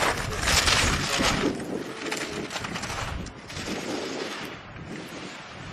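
Slalom skis carving and scraping on hard snow as a racer passes close, with a quick run of sharp clacks in the first second and a half. The scraping fades as the racer moves away down the course.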